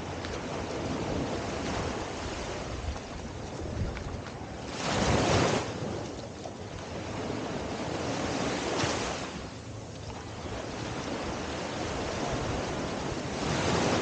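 Small waves breaking and washing up on a sandy shore: a steady wash with three louder surges about four seconds apart.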